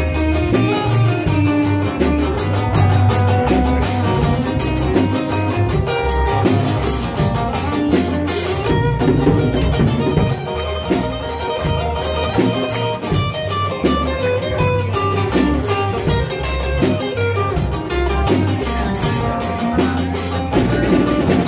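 Live band playing an instrumental passage with no vocals: strummed acoustic guitar, electric guitar and electric bass.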